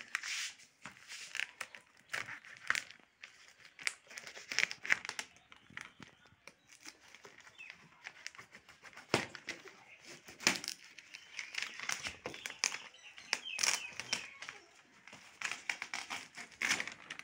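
Clear plastic packing film crinkling and rustling in irregular bursts as it is pulled and torn off a cardboard carton, with two sharp snaps midway.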